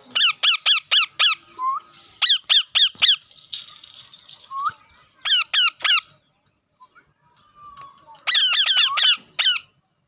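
Green Indian ringneck parakeets screeching: four runs of sharp, repeated calls, about four a second, with the last run the longest and fastest. A couple of short rising whistles fall between the runs.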